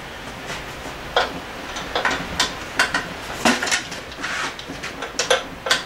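Irregular sharp metallic clinks and knocks, about ten over a few seconds, from hand tools and metal outboard parts being handled during reassembly.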